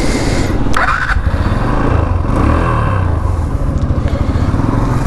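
Motorcycle engine idling with the bike at a standstill, a steady low rumble picked up close by a helmet-mounted GoPro through an external clip-on mic. A brief higher-pitched sound comes through about a second in.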